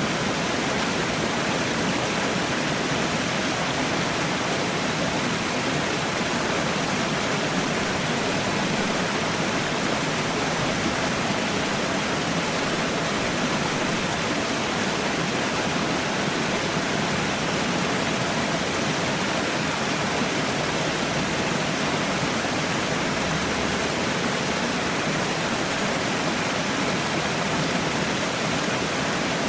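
Falling water rushing steadily, an even, unbroken hiss with no changes.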